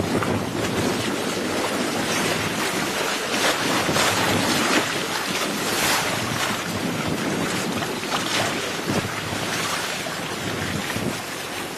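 Wind buffeting the microphone over water rushing past the hulls of a trimaran sailing fast in a good breeze, a steady gusting rush with no engine running.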